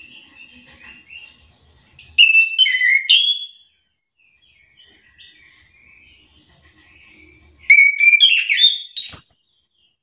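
Chestnut-capped thrush (anis kembang) singing: soft, quiet warbling broken by two loud, rich song phrases, one about two seconds in and one near the end that climbs to high whistled notes.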